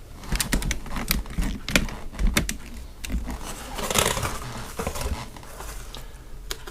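Knives and their plastic packaging being handled: a quick run of light clicks and knocks, with a short rustle about four seconds in.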